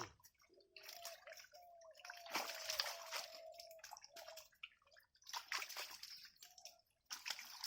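Shallow water sloshing and splashing in irregular bursts as hands and bodies move through it while fishing by hand. A faint high held tone runs through the first half.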